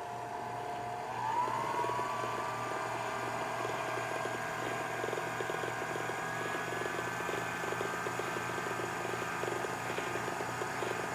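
Viking Husqvarna sewing machine motor running the bobbin winder, filling a bobbin with thread while the needle is disengaged. A steady whine that speeds up and rises in pitch about a second in, then holds.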